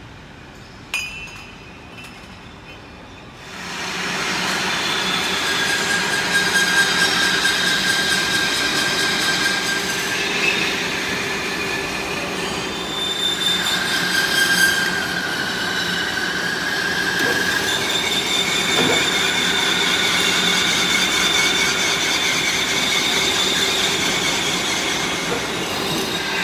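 Machine-shop noise from a line of lathes and metal-working machines machining hydrant parts: a steady hum with high, shifting squeals and whines. It starts loud about three and a half seconds in, after a quieter opening with a single click.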